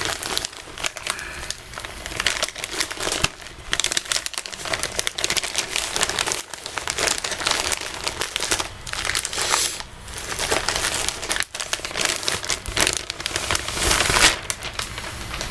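Packaging from a shipping bag being crinkled and crumpled by hand as it is unwrapped, with irregular crackling rustles throughout.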